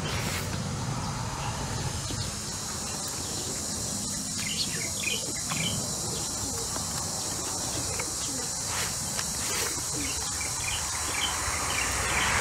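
Steady high-pitched drone of insects, with a few short chirps and the soft clicks of chewing close by.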